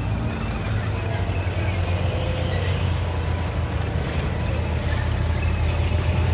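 Tanks driving on a dirt track: a steady low engine rumble that grows slightly louder near the end as a Challenger 2 main battle tank comes closer.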